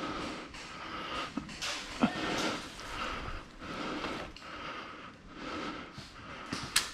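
Ghillie suit and undergrowth rustling in repeated swells, about twice a second, as a player crawls along the ground, with a few sharp clicks or snaps of twigs.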